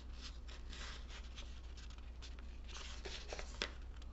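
Sheet of origami paper rustling and crinkling softly as hands fold a flap over and press it flat, with a brief sharper tick near the end.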